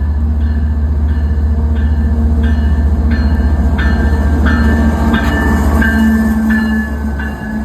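Canadian Pacific freight train rolling past close by. Its wheels clack over rail joints in an even rhythm, about one and a half times a second, over a loud, steady rumble that eases near the end.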